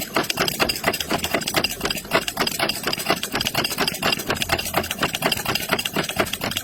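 A machine running with a fast, even rattling knock, several strikes a second, without a break.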